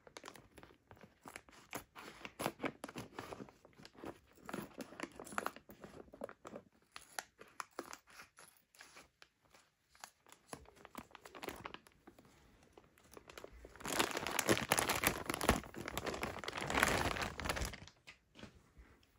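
Scissors snipping and cutting through a thin clear plastic bag, the plastic crinkling with many short crackles. About fourteen seconds in comes a louder, denser stretch of crinkling and rustling as the plush toy is pulled free of the bag.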